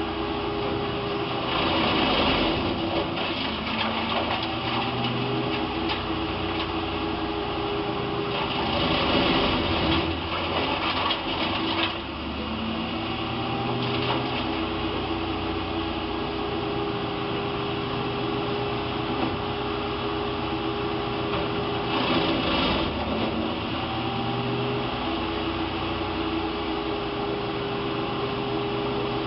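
Wood chipper running steadily at constant speed, with louder rushes of noise about two seconds in, from about eight to twelve seconds, and again around twenty-two seconds.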